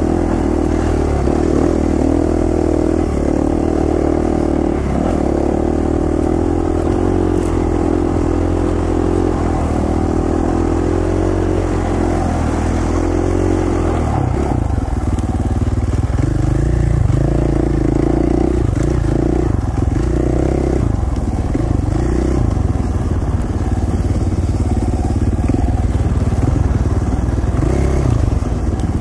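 KTM 450 XC-F four-stroke single-cylinder dirt bike engine running under light, constantly changing throttle on tight trail, heard from the rider's helmet. About halfway through the note gets heavier and fuller in the low end.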